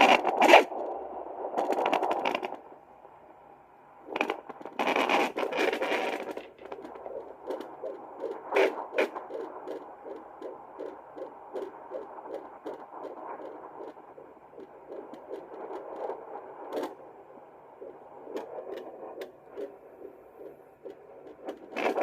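Hi Bebe handheld fetal Doppler playing through its speaker: scraping, crackling bursts as the probe is pressed and moved over the belly, then a quick, even, whooshing pulse of the fetal heartbeat, a 'shook-shook-shook' rhythm.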